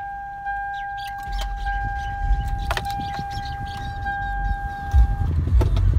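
A Toyota car's electronic warning chime sounds as one steady tone and cuts off about five seconds in, with keys clinking at the ignition. A low rumble builds underneath and is loudest near the end.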